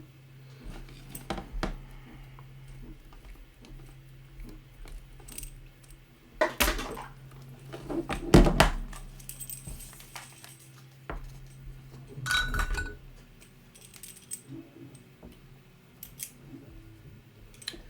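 Handling of a desoldering gun and its accessories: scattered clicks and clatter of small hard plastic and metal parts, with louder knocks about six and a half, eight and a half and twelve and a half seconds in. A faint low hum runs underneath until about thirteen seconds in.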